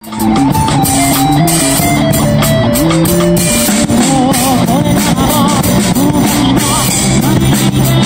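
A street rock band playing live: electric guitar, bass and drum kit, with a singing voice. It starts suddenly at the beginning and keeps going loud and steady.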